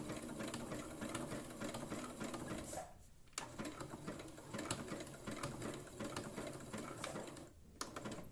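Minerva electric sewing machine running, stitching a narrow, dense zigzag to fasten elastic to a mask. It stops briefly about three seconds in and again near the end, then starts stitching again each time.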